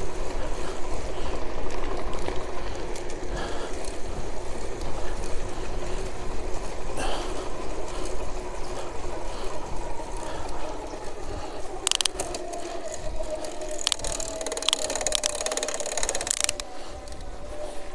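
Electric bicycle with an Alba 500 W motor kit riding on asphalt: a steady motor whine over a low rumble of tyres and wind. In the last third the whine slowly falls in pitch and rapid freewheel ticking runs for a few seconds.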